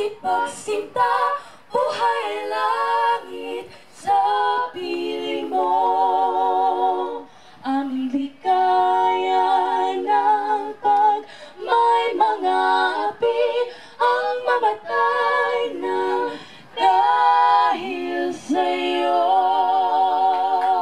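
A trio of women singing a national anthem a cappella through a PA system, in phrases of long held notes with vibrato.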